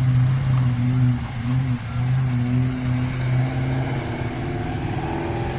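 Car engines idling close by with a steady hum, then, a little past halfway, a car pulls away with a rising engine note as the stopped traffic moves off over the crossing.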